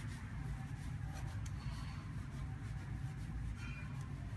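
Faint small ticks and rubbing from pliers and fingers working the brass nozzle out of a 3D printer's aluminium hot-end block, over a steady low hum.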